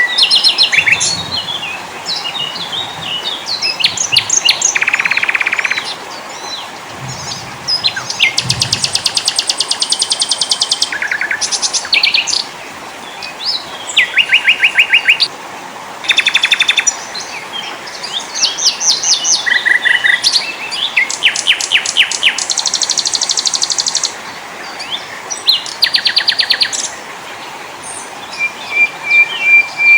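Small songbirds singing one phrase after another: fast high trills, rapidly repeated notes, chirps and short whistles, with brief pauses between the songs.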